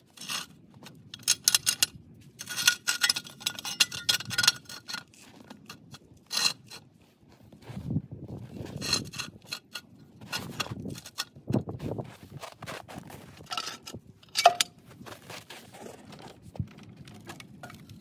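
Steel ratchet jack stands being raised by hand, their toothed bars clicking and rattling in quick clusters, with scattered knocks and one louder ringing metal clank about three-quarters of the way through.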